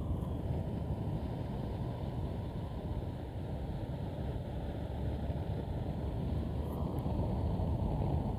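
Steady noise of a motorcycle riding at speed: wind on the microphone over the sound of the bike and road, growing a little louder near the end.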